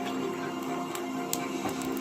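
Music with long held notes, playing from a television in the room.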